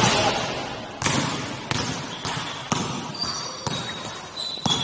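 Basketball being dribbled on the court floor, a bounce about once a second, each one echoing in the large hall.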